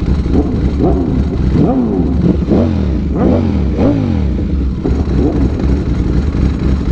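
Polaris Slingshot's engine revved in a rapid series of short throttle blips, each rising and falling in pitch, over a motorcycle engine running underneath.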